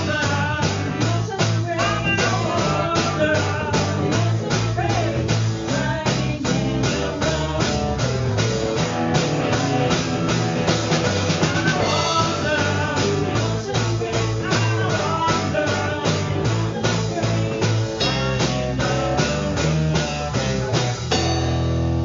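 Live rock band playing: electric guitar, bass guitar and drum kit keeping a steady beat, with a woman singing. Near the end the drumming stops and a low chord rings on.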